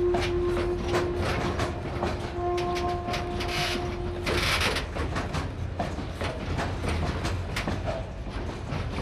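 Ballast hopper wagons rolling slowly past, their wheels knocking over the rail joints in a quick, irregular clatter. A steady squealing tone sounds through the first four seconds, and a short hiss follows about four seconds in.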